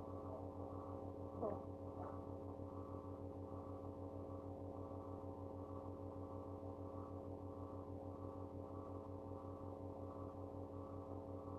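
Steady electrical hum, a low buzzing drone with a faint even pulse in it.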